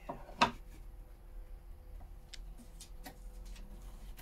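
Light clicks and taps of a metal concealed cabinet hinge being positioned and marked on an MDF cupboard door: one sharper click about half a second in, then a few faint ticks.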